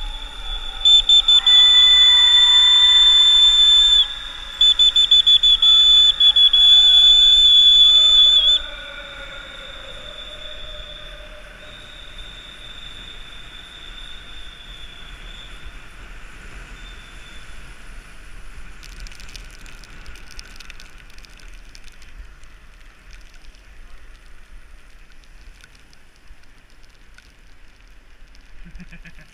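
Two long, loud blasts on a trilling pea whistle inside a road tunnel. The first starts about a second in and the second ends about a third of the way through, with a short break between them. A fainter whistle tone carries on a few seconds more, then steady noise of bicycle tyres on wet asphalt.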